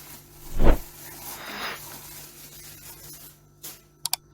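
Handling noise from unboxing a wax warmer: a dull thump about two-thirds of a second in, then a brief rustle of packaging, and two quick clicks near the end.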